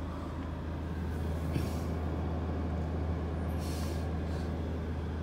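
Van engine idling steadily, a low hum heard from inside the cab, with a couple of faint brief hisses.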